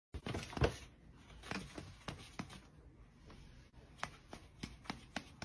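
Soft, irregular clicks and scuffing rustles from a cat pawing and batting at a hand.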